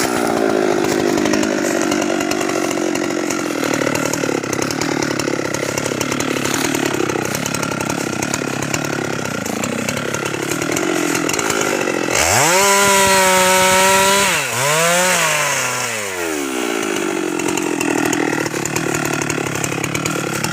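Husqvarna 390XP two-stroke chainsaw cutting into a teak trunk under load, its pitch low and wavering. About twelve seconds in it revs free to a high steady whine, dips once, then drops back into the cut.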